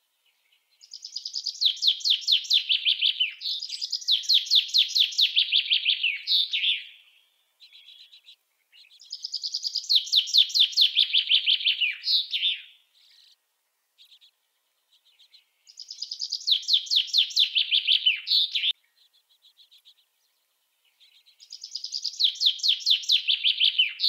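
Male common chaffinch singing its song over and over, every few seconds: each song is a fast run of sharp notes stepping down in pitch and ending in a short flourish, with a few soft notes in the gaps between songs.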